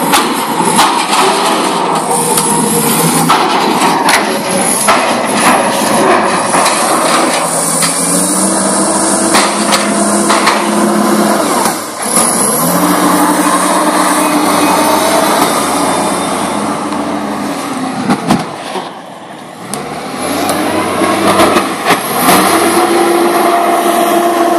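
Engine of a Pettibone rough-terrain material handler running and revving up several times as its grapple lifts a load of steel pipes. Repeated metallic clanks and knocks of steel pipe against pipe and the railcar's steel sides, most of them in the first half.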